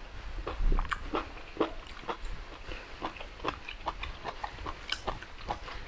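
Close-miked mouth sounds of a man eating spoonfuls of soupy beef offal curry: wet chewing and smacking, many short irregular clicks.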